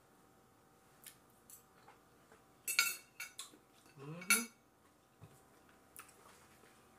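A metal fork clinking and scraping against a plate in a scatter of short, light clinks, the strongest cluster about three seconds in. Around four seconds in, a brief rising "mm" is hummed while eating.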